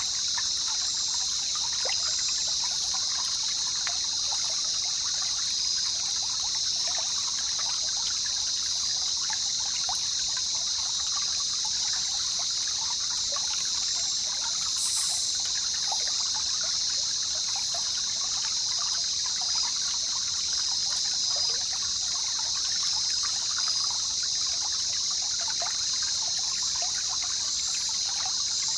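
Jungle river ambience: water trickling and babbling steadily, over an even, high-pitched hiss that runs without a break.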